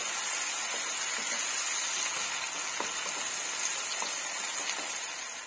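Diced tomatoes, onion and garlic sizzling in rendered pork fat in a frying pan, stirred with a wooden spatula. A few light taps of the spatula against the pan.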